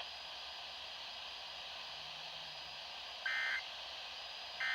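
Emergency Alert System end-of-message signal: two short bursts of digital data tones, a little over a second apart, starting about three seconds in, over steady radio hiss. The bursts mark the end of the alert.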